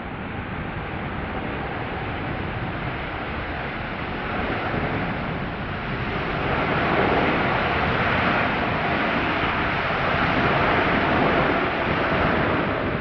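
Jet airliner passing low on landing approach: a broad rushing engine noise that swells about halfway through and stays loud until near the end, with wind buffeting the microphone.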